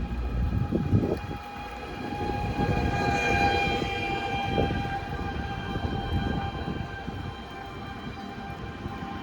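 A long horn blast with several steady tones held together, loudest about three seconds in and fading toward the end, over a low road rumble.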